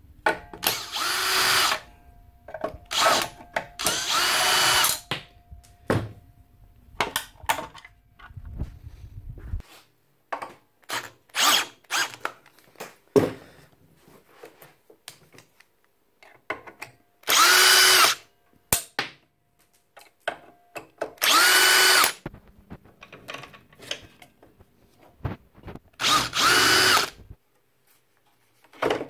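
A power drill-driver run in short bursts of about a second each, about seven times, its whine rising as it spins up and then holding steady, as screws are taken out to strip down a miter saw. Between the bursts come scattered clicks and knocks of parts being handled.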